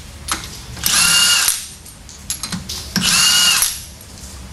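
Power drill spinning lug nuts on the wheel studs in two short runs of under a second each, with a steady whine, about a second in and again about three seconds in. The nuts are ones that he calls no good, with faulty threads.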